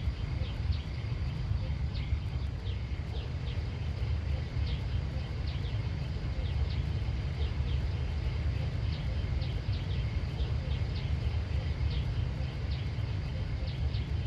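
Outdoor ambience: a small bird chirping repeatedly, short high notes that sweep downward about once or twice a second, over a steady low rumble and a faint steady high tone.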